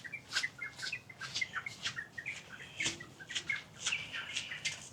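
Small birds chirping: many short, quick calls, several overlapping, scattered throughout.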